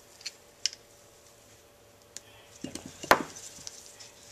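Gloved hands working a tube off a Honda Z50 carburetor: a few faint clicks and taps of small metal parts, with a sharper click about three seconds in.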